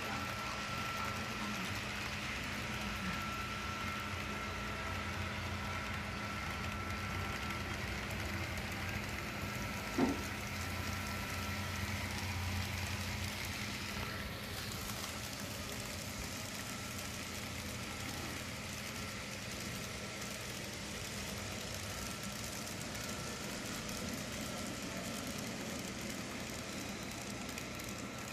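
HO scale model trains running on a layout: a steady hum and rumble with a faint high whine that fades about twelve seconds in. A single sharp click about ten seconds in.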